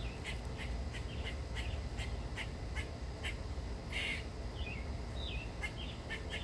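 Background birds calling: a regular run of short, high chirps about two or three a second, a harsh call about four seconds in, and a few sliding chirps shortly after, over a steady low rumble.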